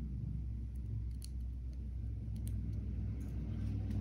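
A steady low hum, with a few faint clicks of small plastic parts being handled.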